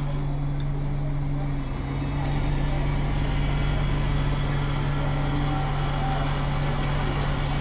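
Scania multi-axle coach idling, a steady low hum heard inside the driver's cab, slightly louder about two seconds in.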